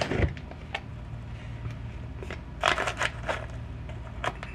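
Clear plastic scoop digging into a tub of powdered modeling mask and tipping the powder into a plastic mixing bowl: scattered short crunchy scrapes and light taps.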